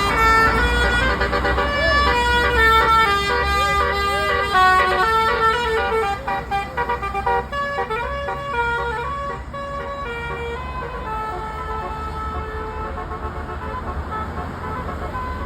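Bus basuri (telolet) melody horn playing a quick tune of short stepped notes with a few bends, over the low rumble of an engine. About ten seconds in the tune gives way to fainter, steadier tones.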